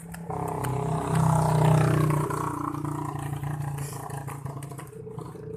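A motor vehicle's engine passes by, swelling to its loudest about one and a half seconds in and then fading away.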